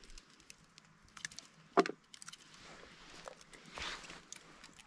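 Rustling and small snaps of shrub branches and footsteps on the slope while wild berries are picked by hand, with a single sharp click a little under two seconds in.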